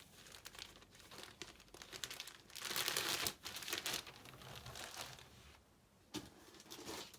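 Packaging crinkling and rustling as graded comic slabs are handled and unwrapped, loudest about three seconds in, with a short lull near the end before it starts again.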